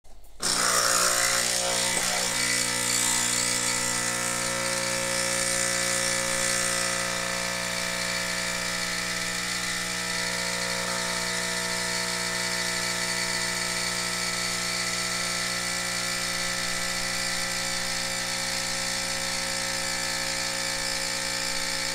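Nespresso Inissia capsule machine's pump buzzing steadily as it brews an espresso shot. It starts about half a second in, with extra hiss over the first several seconds.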